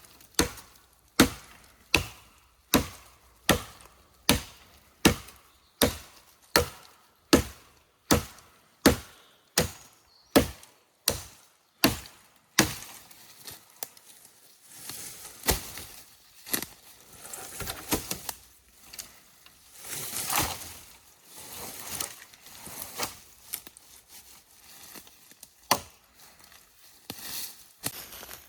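Steady chopping strikes on wood, a little more than one a second for about twelve seconds, then irregular cracking and rustling.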